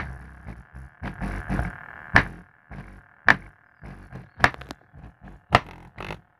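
Music played through a subwoofer driven by a home-built STK amplifier's subwoofer channel, with the woofer playing alone. Low bass notes and sharp beat hits come about once a second.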